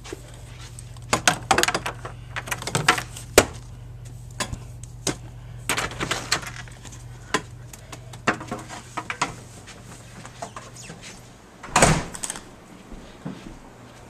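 Irregular knocks and clatter of things being handled and carried, over a steady low hum; about twelve seconds in a loud bang, a door shutting, and the hum is gone after it.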